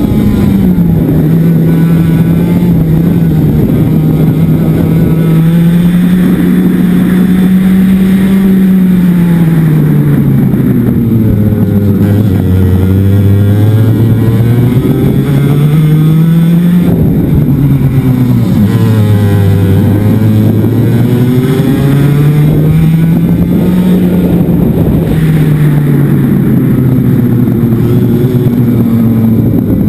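Racing kart engine, heard onboard, running hard round a lap. Its note holds high on the straight, drops sharply as the kart slows for corners (about ten seconds in, seventeen seconds in and near the end), and climbs again in between.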